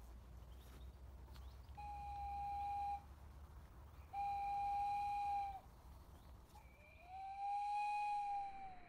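Three long, steady whistle-like notes at the same pitch, each about a second and a half long with short gaps between; the third slides up into the note and falls away at its end.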